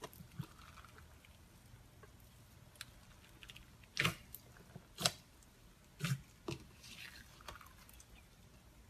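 Slime being squished and pressed by hand, giving a series of short, wet popping clicks, the sharpest about four, five and six seconds in.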